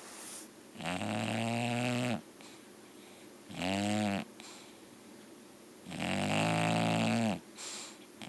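English bulldog snoring: three loud, pitched snores a couple of seconds apart, the last the longest, with soft breaths between them.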